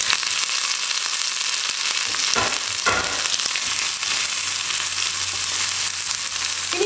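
Chopped onions, green chillies and curry leaves sizzling in hot oil in a non-stick frying pan while being stirred with a wooden spatula, with two light knocks about halfway through.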